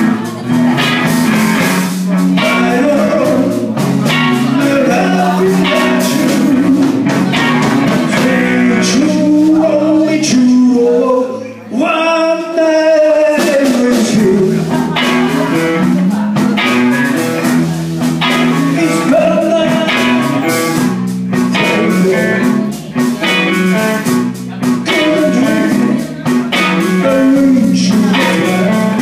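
Live rock band playing a bluesy number: electric guitars, bass and drum kit, with singing. About twelve seconds in the band drops out for a moment and a single held note rings on its own before they come back in.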